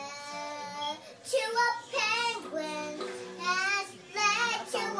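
A small girl singing: one long held note, then several short sung phrases with a wavering pitch.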